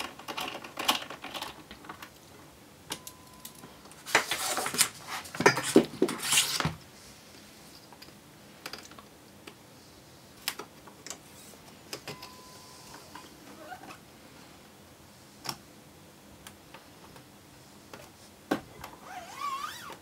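Plastic clicks, taps and rustling as a black plastic trim strip is laid over the screen-screw line of an all-in-one PC's bezel and pressed into place by hand. There is a denser run of clicking and rustling about four to seven seconds in, then sparse single clicks and a brief squeak near the end.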